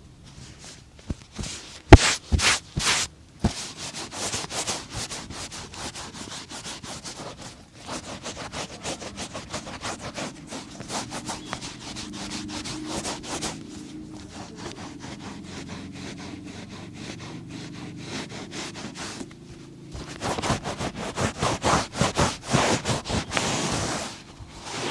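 Rapid back-and-forth scrubbing strokes of a brush on a leather boot, louder and brisker near the start and again near the end, with a duller, softer stretch in the middle. A single sharp knock about two seconds in.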